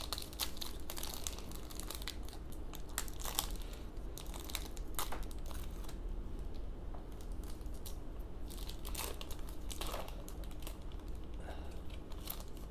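Foil Yu-Gi-Oh booster pack wrapper being torn open by hand, crinkling in irregular short bursts with pauses between.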